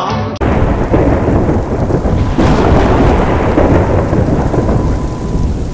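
The music cuts off about half a second in, replaced by the loud, steady noise of rain and thunder.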